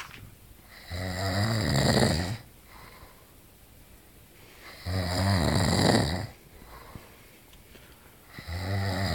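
A man snoring in his sleep: three long, low-pitched snores, each about a second and a half, coming roughly every four seconds, the third starting near the end.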